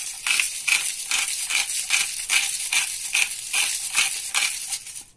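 Hand-twisted spice grinder grinding salt and pepper, an even crunchy rattle of about two or three twists a second that stops near the end.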